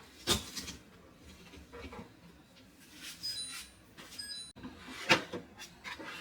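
Household handling knocks, typical of containers being moved and set down while a refrigerator is sorted: two sharp knocks, one just after the start and one about five seconds in, with lighter clicks and rubbing between them.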